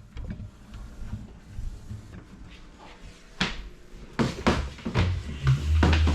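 A series of knocks and clatters of kitchen doors and items being handled, faint at first, the loudest a little over three seconds in, then several more around four seconds. A low music bass comes in about five seconds in.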